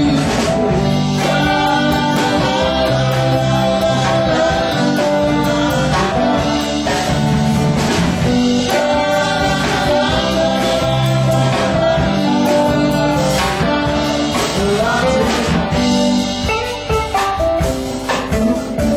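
Live band playing: electric guitars, keyboard and a bass line under a lead vocal line, loud and continuous.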